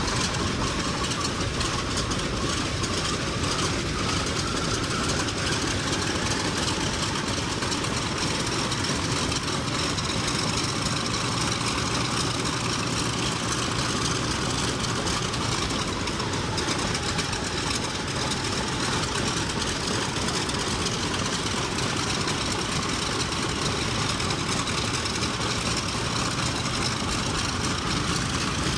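Douglas DC-6A's Pratt & Whitney R-2800 Double Wasp 18-cylinder radial piston engines running at low power on the ramp, a steady loud engine noise, with a faint rising whine over the first few seconds.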